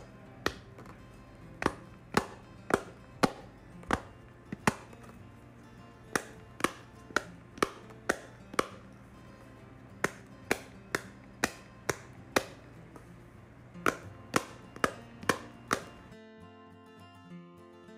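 Silicone bubbles of a Fat Brain Toys Dimpl baby toy being pushed through by fingers, each giving a sharp pop. About two dozen pops come in quick runs roughly half a second apart, with short pauses, and stop about two seconds before the end.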